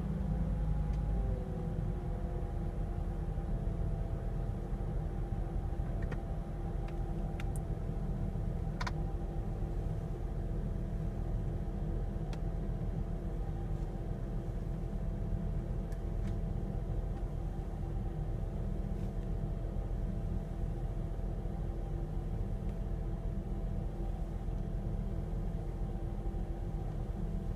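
Volvo V70R's turbocharged five-cylinder engine idling, with a steady whine over the low running noise; the whine's pitch drops in the first second or so and then holds. The owner traces this strange noise to the alternator, probably a bad bearing.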